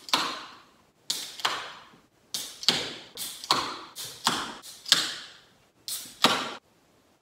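Metal beer cans being handled: a quick, irregular series of sharp clicks and knocks, roughly two a second, that stops shortly before the end.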